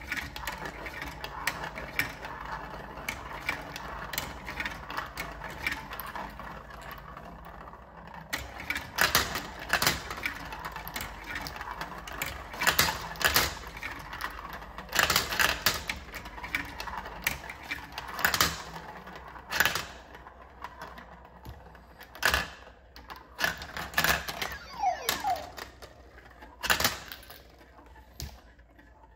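Plastic balls of a VTech Marble Rush toy marble run rolling and clattering along plastic track, swirling around a funnel and dropping into a collector tray. A dense run of clicks and knocks that thins out near the end.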